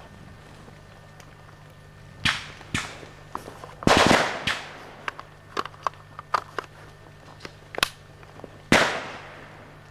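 Rifle gunfire: a dozen or so irregular shots at varying loudness, with a short burst about four seconds in and a loud single shot near the end that rings out.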